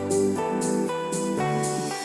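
Instrumental background music: sustained melodic notes with the chord changing about every half second to a second.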